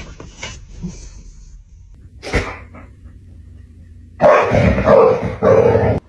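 A dog barking: one short sharp sound about two seconds in, then three loud barks in quick succession near the end.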